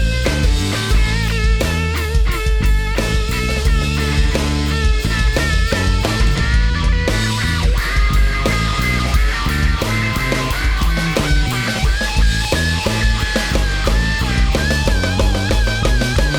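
Live band's instrumental break: a lead electric guitar line with bent and wavering notes over drum kit and bass keeping a steady beat.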